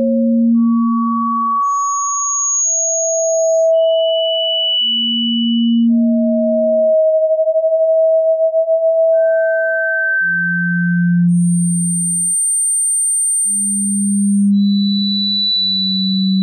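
A sequence of electronically generated pure sine tones for tinnitus relief. About a dozen steady tones, each held for one to three seconds at a new pitch, from a low hum to a very high whistle, usually a low one and a higher one sounding together. Around seven to nine seconds in, two close tones beat against each other in a fast wobble.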